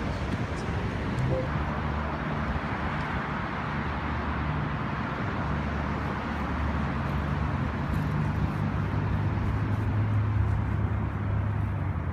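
City traffic noise: vehicle engines running and cars passing, heard as a steady low hum with a wash of road noise.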